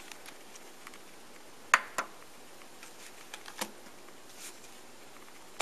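Sharp handling clicks and taps from a portable media player and its audio cable being handled and unplugged: two clicks about a quarter second apart a little under two seconds in, then a softer one and a few light ticks.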